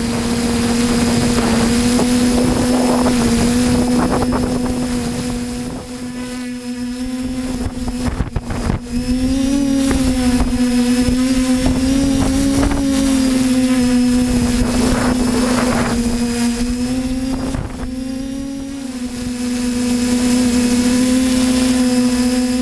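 A steady motor or engine drone with one strong held pitch, rising slightly for a few seconds in the middle, with faint clatter over it.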